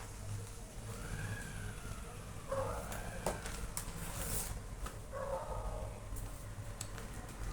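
Three high, whining animal calls, each rising and falling over about a second, with a few sharp clicks between them.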